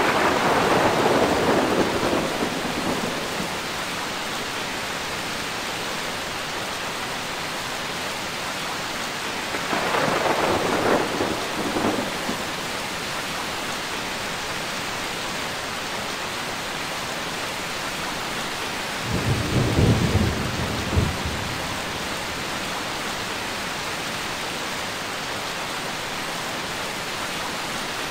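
Steady rain with three rolls of thunder: one right at the start lasting about three seconds, another about ten seconds in, and a deeper rumble about nineteen seconds in that ends with a sharper clap.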